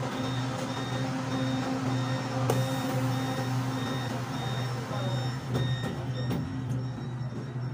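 Electronic warning beeps on an LRT Line 2 train, a short high tone repeating about twice a second for roughly six seconds, typical of the door-closing signal at a station stop. Under them runs the steady hum of the train car, and a few sharp knocks follow around six seconds in.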